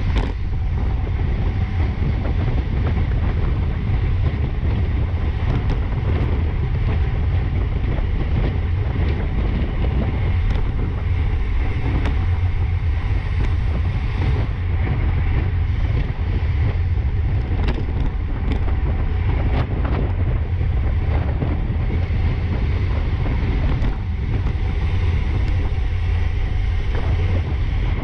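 Steady wind rush buffeting a bike-mounted action camera's microphone at about 22 mph, heavy in the low end. A few faint ticks come through in the middle.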